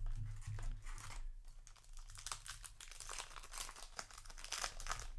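Foil wrapper of a Yu-Gi-Oh! booster pack crinkling in the hands, a dense run of quick crackles that grows busier about two seconds in.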